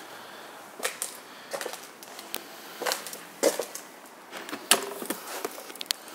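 Irregular clicks and knocks from a leather motorcycle saddlebag being handled: its latch worked and its lid opened. The clicks come every half second to a second, the sharpest a little past the middle.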